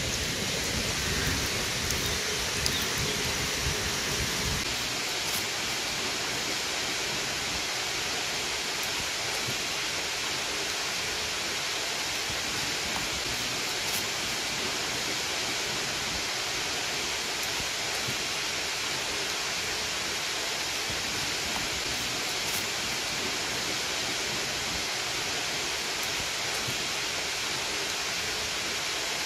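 Steady rain falling, an even hiss with no break. There is a low rumble under it for the first four seconds or so, which then drops away.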